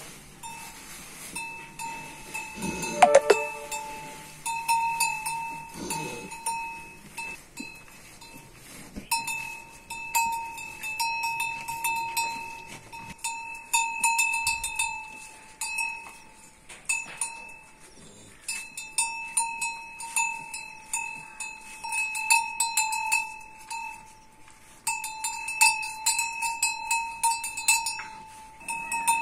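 A metal cowbell on a cow's neck ringing and clanking irregularly as the cow moves its head, with short quieter pauses. There is one brief louder sound about three seconds in.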